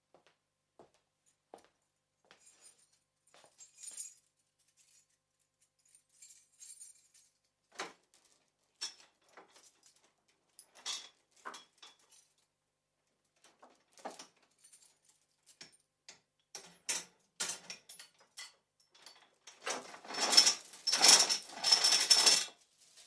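Metal chain being handled and unlocked: scattered metallic clicks and clinks, then a louder run of chain links rattling for about three seconds near the end.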